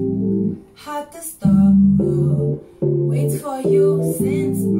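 Live acoustic music: a woman singing over an acoustic guitar and sustained electronic chords, the chords stopping and restarting in blocks.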